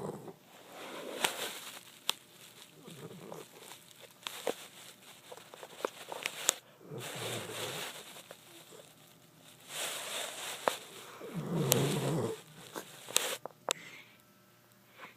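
A sleeping animal snoring: slow, noisy breaths every two to three seconds, with a few short clicks between them.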